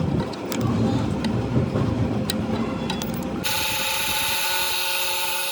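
Metalworking sounds: a low rumble with scattered sharp clicks, then an abrupt switch about three and a half seconds in to an electric power tool running with a steady whine and a high hiss.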